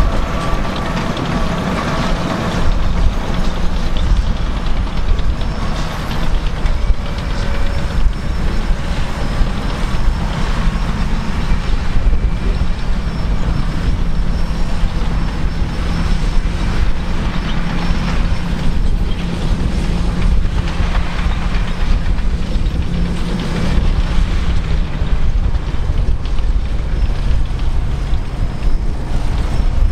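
Caterpillar D8K crawler dozers working: heavy diesel engines running hard and steady under load, with a dense clatter of tracks and steel over it.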